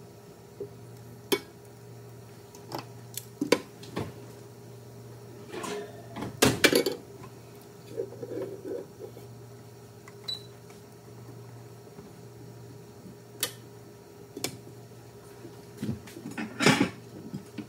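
Metal tongs clicking and knocking against a nonstick frying pan while turning slices of vegan bacon, with scattered kitchen clatter over a steady low hum. The loudest clatter comes about six and a half seconds in and again near the end.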